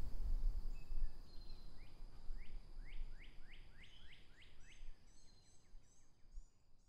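Outdoor field ambience with a songbird: a run of about eight quick downward-slurred notes in a row, then higher, thinner twitters near the end. Under it a low rumble dies away over the first couple of seconds, and the whole sound fades out toward the end.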